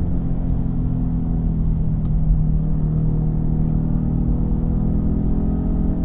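5.3-litre V8 pickup truck with a Gibson cat-back exhaust and Superflow muffler, its exhaust note running at low, steady revs as the truck rolls slowly along.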